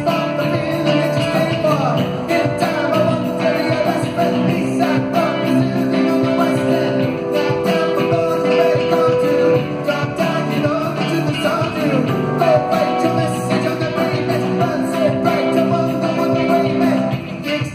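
Live rock band playing an instrumental passage with electric guitar, bass, keyboards and drums.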